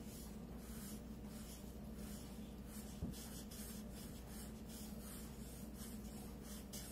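Felt-tip markers scribbling on paper: faint, quick back-and-forth scratching strokes as two markers colour in a shape, with one small knock about three seconds in.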